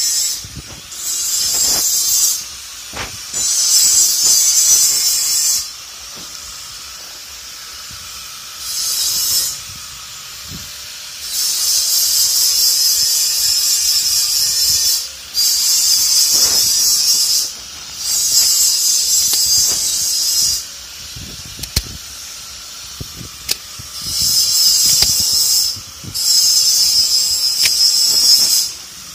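Electric grinder grinding iron: a loud, high-pitched grinding noise that starts and stops about nine times, in runs of one to four seconds with short pauses between.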